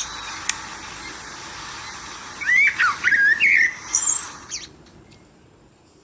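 Eurasian blackbird singing: a short phrase of quick, sliding fluted whistles about halfway through, ending in a very high thin twitter, over a steady background hiss that fades away in the last second or so.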